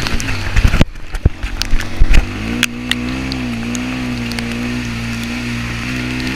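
Off-road vehicle's engine running at low, steady revs with a brief rise and fall in pitch. Sharp knocks and rattles from the vehicle body come through in the first two seconds.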